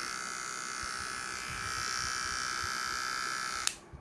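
Citron TR002 electric hair trimmer running with a steady high buzz, then switched off with a click near the end.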